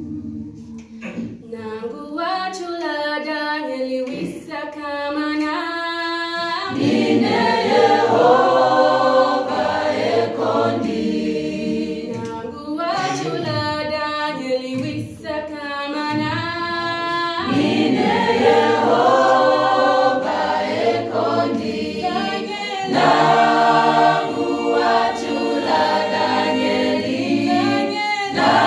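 A cappella choir singing a hymn in harmony. A few voices open the song, and the full choir comes in after about six seconds.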